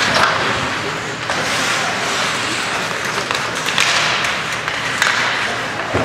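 Ice hockey rink during play: skate blades scraping and hissing on the ice, a few sharp clacks of sticks and puck, over a steady wash of spectators' voices.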